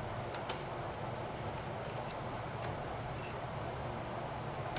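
Scattered small metal clicks and light taps from nuts and bolts being worked out by hand from a Snapper riding mower's clutch drive wheel.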